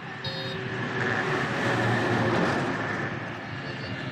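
A passing motor vehicle, its noise swelling to a peak about two seconds in and then fading away.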